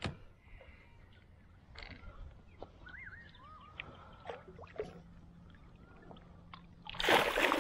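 Large flathead splashing at the surface beside a kayak as it is brought to the landing net: one loud splash near the end, after a stretch of faint scattered ticks.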